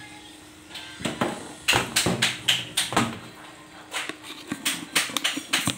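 A utensil knocking and scraping in a wok of termite-mushroom broth: an irregular run of sharp clicks starting about a second in, over a faint steady hum.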